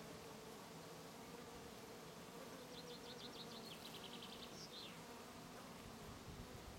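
Honeybees buzzing faintly and steadily as they forage on lavender flowers. A brief high, rapid trill cuts in about three seconds in and ends in a short falling note.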